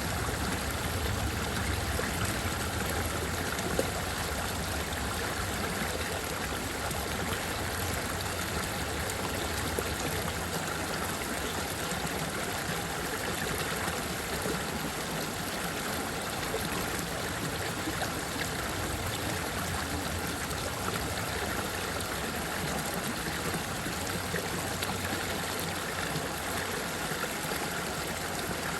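Running water flowing steadily: an even, unbroken noise of water with no separate splashes or pauses.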